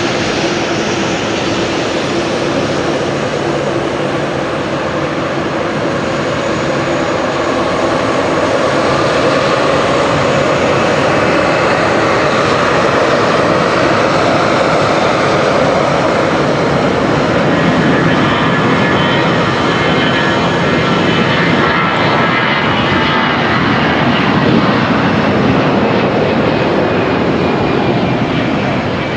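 Boeing 737-800 airliner's CFM56-7B turbofan engines during landing: loud, steady jet noise, with a faint high whine that drifts in pitch in the second half.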